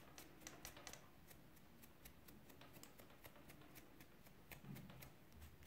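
Very faint, irregular ticks and rustles, a few a second, of single-twist cotton macramé cord being pulled apart by hand to fluff a pompom.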